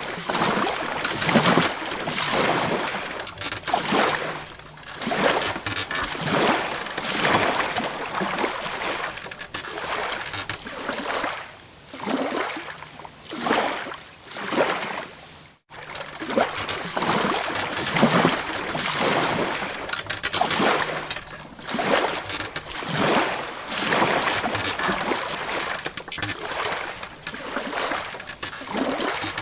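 Sea water splashing and slapping against a wooden boat's hull in irregular surges, swelling and falling every second or two. The sound cuts out briefly about halfway through.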